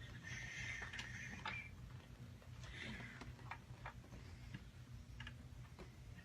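Snoring: two slow, noisy breaths, the first a little over a second long and the second about two and a half seconds in, with scattered faint clicks through the rest.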